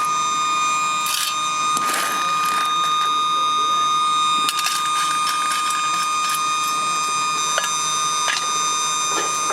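Electric sucker blower on a miniature steam locomotive's chimney running with a steady high whine, drawing the fire while coal is loaded into the firebox. A few short clicks and scrapes sound over it.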